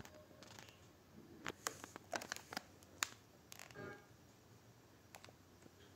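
Faint room sound with a handful of light clicks and taps in the middle, and one brief pitched sound just before four seconds in.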